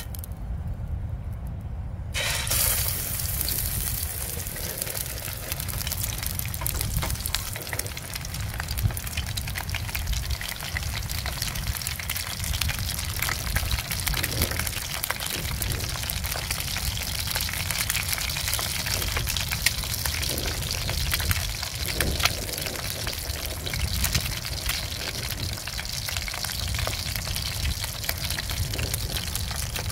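A fish tail fried in hot oil in a pan on a portable gas stove: the oil starts sizzling about two seconds in, as the fish goes into the pan, and keeps sizzling steadily, with occasional pops.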